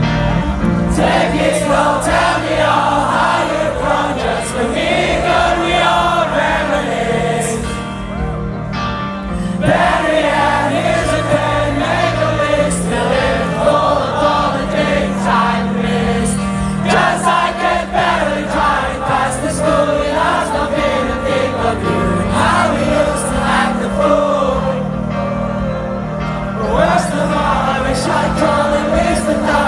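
A concert crowd singing along together with a band's live music, the many voices blending like a choir over steady guitar and bass.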